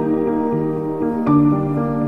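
Soothing instrumental background music: sustained notes, each held for about a second before the next.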